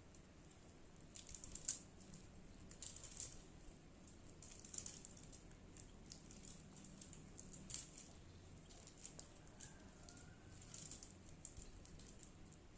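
Faint, irregular rustling and clicking of bamboo sticks being handled and fitted together into a kite frame, in short clusters every second or so.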